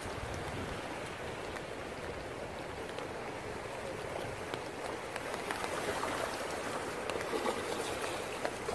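Steady rush of swollen, fast-flowing floodwater, with scattered light ticks like raindrops; it grows a little louder about halfway through.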